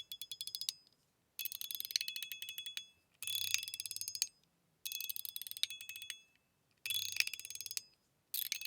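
Titanium 01 EDC Mini Burger mechanical fidget slider worked back and forth in about five quick runs, each a fast train of detent clicks with a bright, ringing metallic ping over it.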